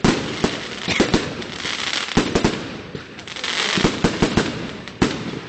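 Fireworks display: aerial shells bursting in a rapid, irregular series of sharp bangs, some in quick clusters, with a hissing crackle between them.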